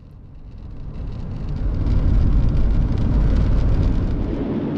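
Road and wind noise from a van driving on the highway: a low rumble that swells to a loud peak about two seconds in and eases off near the end.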